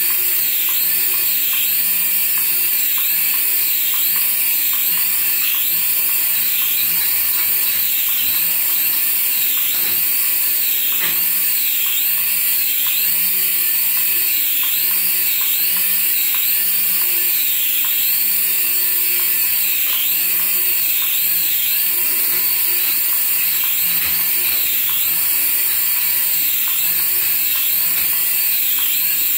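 Small coaxial-rotor RC toy helicopter hovering, its tiny electric rotor motors giving a high-pitched whine. The pitch rises and dips about once a second.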